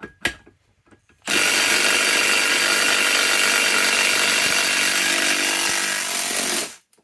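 Milwaukee M12 Fuel Stubby 3/8-inch cordless impact wrench hammering on a rusted 1-1/2-inch nut to loosen it. It runs steadily for about five seconds, then stops suddenly.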